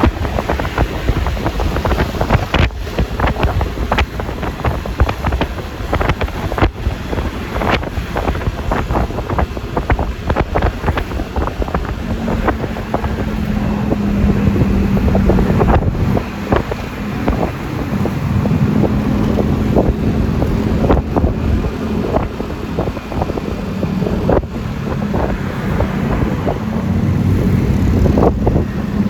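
Wind buffeting the microphone on a moving Yamaha Lexi LX 155 scooter, over road noise and the hum of its single-cylinder engine. After about twelve seconds a steadier engine drone comes through as the scooter holds its speed.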